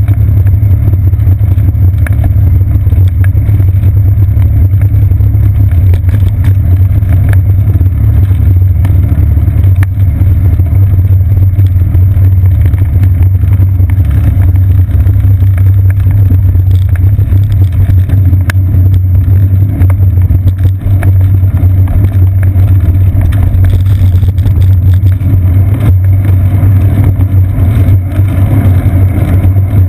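Bicycle riding along a wet path, heard as a loud, steady low rumble of tyre and frame vibration carried through a seat-post-mounted camera, with a few faint ticks.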